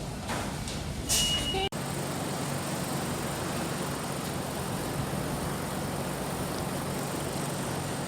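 Steady running noise of a moving vehicle, an even rumble with a low hum under it. A short high tone sounds about a second in, just before an edit cut.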